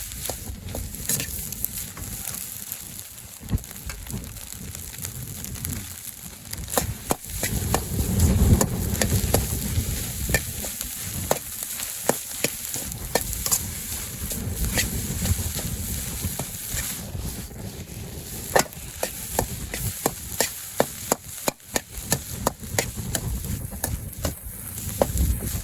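Fried rice being stir-fried in a 30 cm two-handled wok: a steady sizzle with frequent sharp clacks and scrapes of the utensil against the wok.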